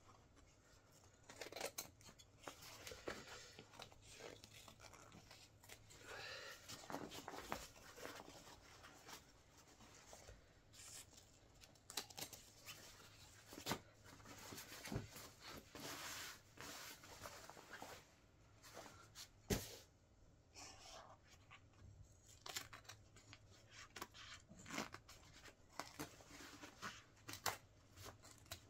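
A Wellensteyn Schneezauber jacket's fabric being torn and cut apart: irregular rasping rips and snips, with a few sharp clicks.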